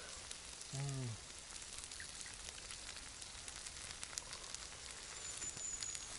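Faint steady sizzling with scattered small crackles from a hot saj pan of fried potatoes, meat and mushrooms just off the campfire. A person makes one short low hum about a second in.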